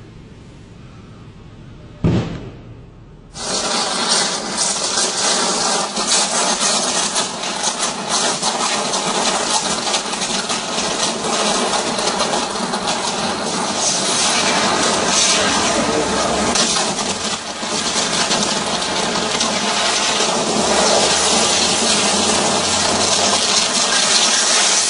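Sustained electrical arc on overhead power lines, a loud continuous hissing crackle of a short circuit that keeps burning, starting abruptly a few seconds in. A single sharp pop comes just before it.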